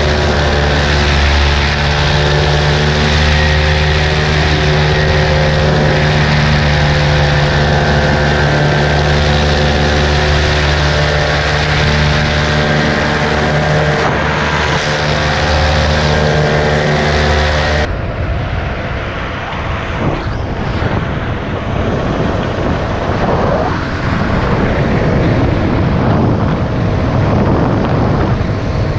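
Paramotor engine and propeller running steadily at cruise, an even engine drone with a rush of air. About eighteen seconds in it cuts off abruptly and a rough rush of wind on the microphone takes over, with no engine tone heard.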